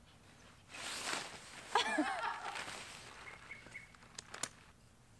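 Nylon tent fabric and mesh rustling as a dome tent is handled and pitched, with a short wordless vocal sound just under two seconds in and two sharp clicks a little after four seconds.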